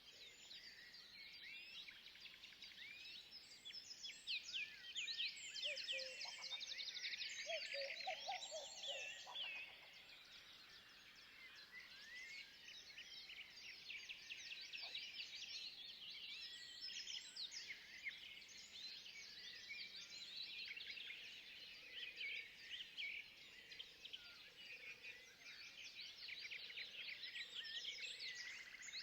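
A dense chorus of many small forest birds chirping and trilling together, busiest a few seconds in, with a few lower calls from another animal mixed in partway through.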